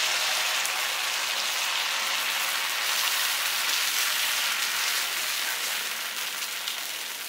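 Dosa batter sizzling steadily on a hot dosa pan as it is poured and spread in circles with a ladle, easing a little near the end.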